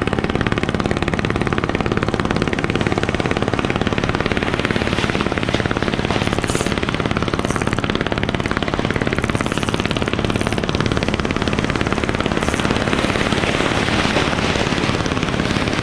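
Ryobi Ultra Power 1000 spinning reel cranked fast and steadily, a rapid continuous rattle of its gears, over the wash of surf.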